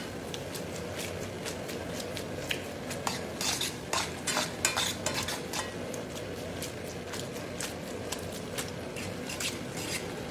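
Metal fork stirring spaghetti, potatoes and pecorino in a stainless frying pan, tapping and scraping the pan in irregular clicks as the cheese is worked into a cream off the heat.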